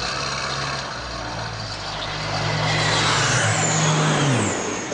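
A vehicle engine idling at a steady low pitch, its note sliding down near the end. Over the second half a rushing noise grows louder, with high whines falling in pitch, like a low-flying plane passing.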